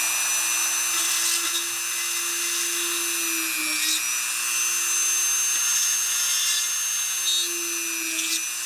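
Small hand-held rotary tool with a thin drill bit running at high speed, drilling holes through the bottoms of rocket ejection-charge cups. Its steady high whine dips briefly a few times as the bit bites.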